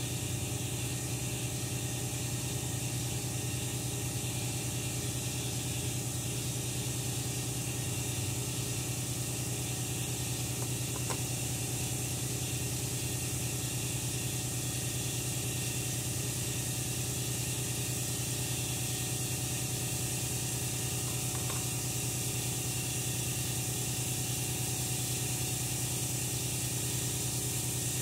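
Air compressor running steadily in the machine shop, a constant hiss over a low motor hum. Two faint clicks of small metal parts being handled, the first about a third of the way in and the second past the middle.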